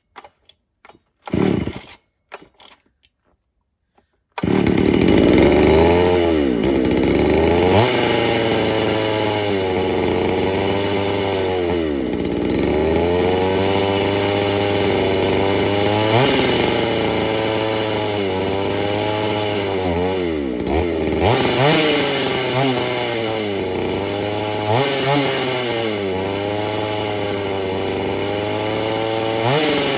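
Two-stroke engine of a Dayton 4Z251 (Poulan 3400) chainsaw on a cold start, running on gas primed down the carburetor. A couple of short bursts come first; about four seconds in it catches and keeps running, its speed rising and falling again and again.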